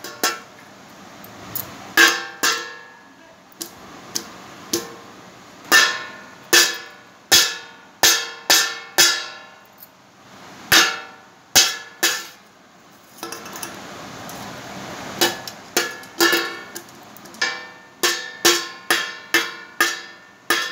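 A small stainless steel cup banged again and again on a large stainless steel plate (thali) by a baby. The hits are irregular and each one rings like a bell. There are short pauses, and the hits come in quicker runs near the end.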